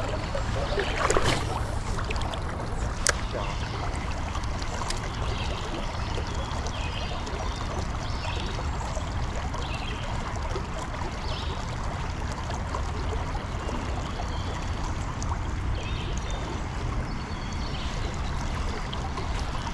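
Wind rumbling on the microphone over running, lapping river water, with a few sharp clicks in the first few seconds.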